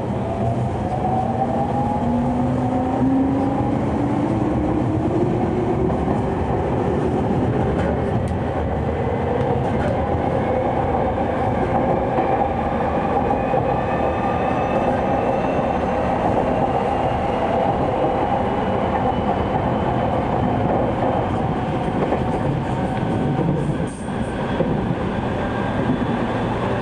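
JR East 209 series electric train running, heard from inside the car. Its MT68 traction motors whine, rising in pitch over the first dozen seconds as the train accelerates and then holding steady, over continuous wheel and rail rumble.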